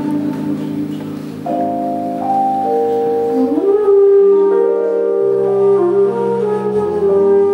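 Live jazz from a quintet of alto flute, electric piano, guitar, double bass and drums: held electric piano chords and a walking bass line under the melody. About three and a half seconds in, a melody note slides up into a long held note.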